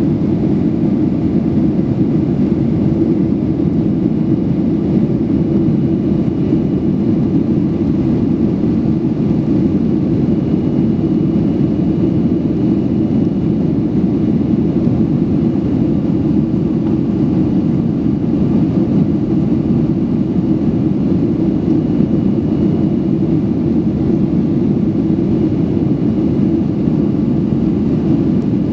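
Steady cabin noise of a Boeing 737-800 climbing after take-off: the low, even drone of its CFM56-7B jet engines and the airflow, heard from a window seat beside the wing.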